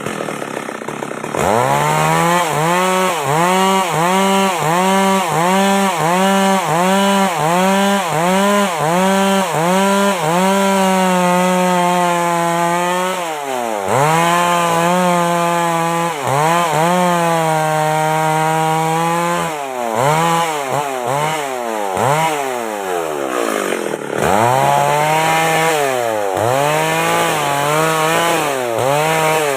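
MS 385 chainsaw under load ripping through a log to cut boards. The engine pitch dips and recovers over and over, about one and a half to two times a second, as the bar bites. After about ten seconds it holds a steadier high pitch, broken by a few short drops in speed.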